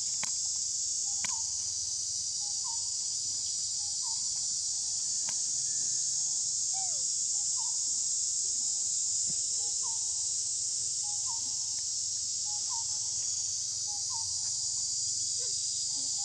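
Steady high-pitched buzzing of an insect chorus that never lets up, with a faint short call repeating about every second and a half beneath it.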